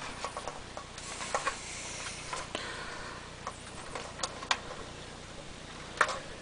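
Scattered light clicks and a soft rustle of plastic quick-disconnect wiring plugs being handled behind an electric smoker's control panel.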